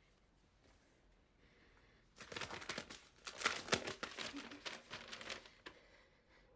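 Paper envelope being torn open and the letter pulled out and unfolded: a run of crisp paper crinkling and tearing that starts about two seconds in and goes on for about three and a half seconds.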